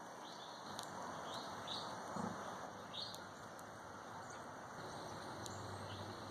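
Faint outdoor background with small birds giving scattered short, high chirps and a few light clicks.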